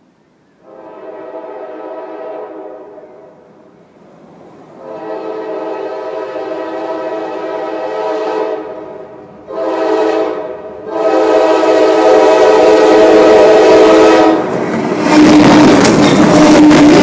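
Approaching train's horn sounding the grade-crossing signal: two long blasts, a short one and a long one, each louder than the last. About two and a half seconds before the end, the train passes over the camera with a loud rush of wheels on rails.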